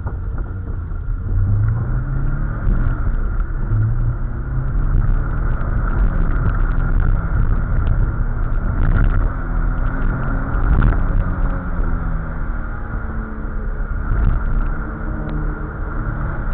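Classic car's engine heard from inside the cabin while driving, its pitch rising and falling repeatedly as it accelerates and eases off, over steady road noise.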